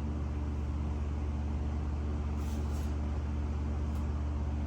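Shop exhaust fan running steadily with a low hum, just after being switched on.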